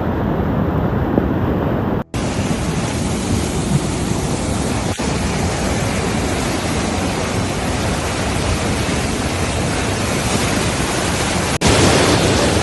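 Steady loud rushing noise of a heavy downpour and running floodwater. The sound drops out briefly about two seconds in and changes again near the end, where the footage cuts between clips.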